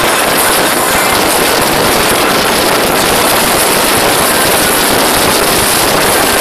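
Open motorboat running at speed: a loud, steady rush of wind and water noise.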